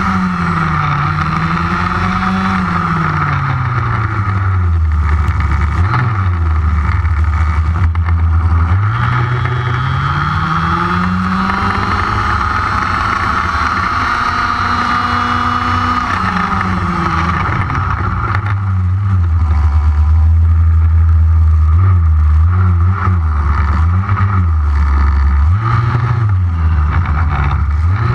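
HPI Baja 5B 1/5-scale RC buggy's two-stroke petrol engine revving up and down as it drives, heard close from its on-board camera mast. The pitch rises and falls again and again, and dwells low for longer stretches in the second half, over a steady higher whine.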